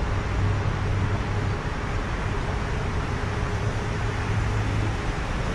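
Steady low rumble under a constant hiss of background noise, with no distinct events.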